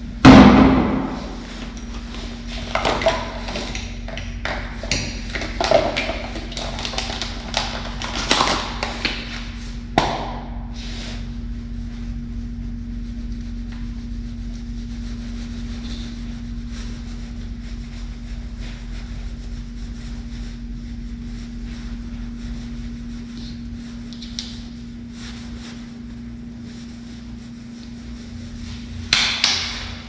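A loud thump just at the start, ringing briefly in a tiled restroom, then scattered clicks and crinkling of a small plastic packet being handled over the next several seconds, all over a steady low hum.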